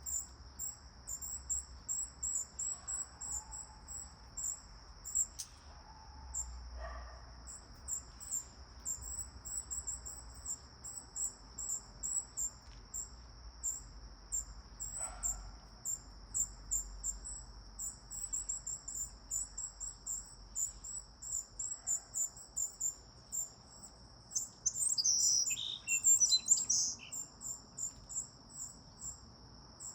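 Summer outdoor soundscape: insects droning steadily at a high pitch with a rhythmic high chirping throughout, a few faint bird calls, and a louder bird call for a couple of seconds near the end.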